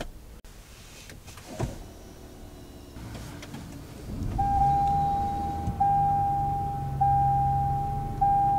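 2024 Toyota Tundra hybrid powering up. After a faint click or two, a low hum rises about four seconds in, and a dash warning chime sounds as a steady tone, broken briefly about once a second.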